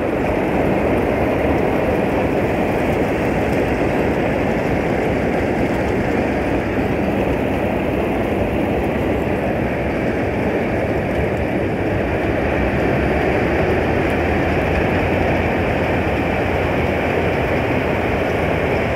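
Combine harvester running steadily while harvesting wheat: a dense, even mechanical noise of the engine and working machinery, with no change in pace.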